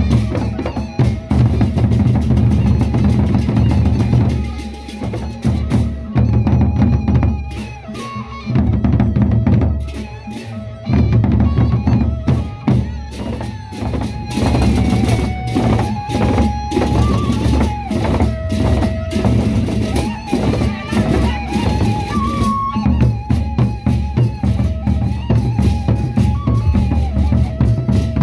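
Gendang beleq ensemble playing: large Sasak double-headed barrel drums beaten with sticks in fast, dense rolling patterns, with deep booming low strokes and a melody of held notes above. The drumming drops back briefly a few times before surging again.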